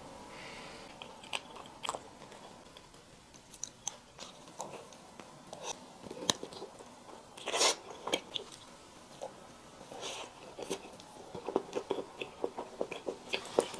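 Close-miked biting and chewing of a layered hazelnut chocolate: sharp crunches and crackles at uneven intervals, the loudest about seven and a half seconds in, with a quick run of small crackles near the end.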